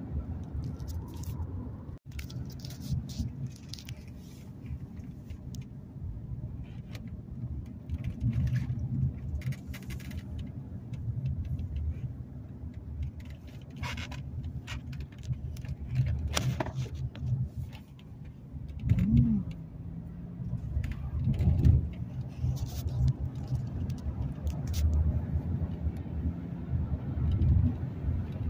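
Car cabin noise while driving: a steady low rumble of tyres and engine, with scattered clicks and rattles over it.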